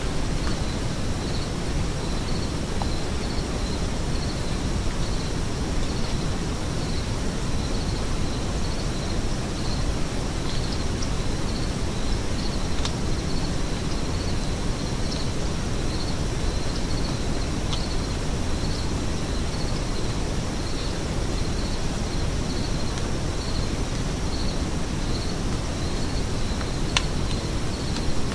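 A cricket chirping steadily, a little more than one high chirp a second, over a constant low outdoor noise, with a few faint clicks.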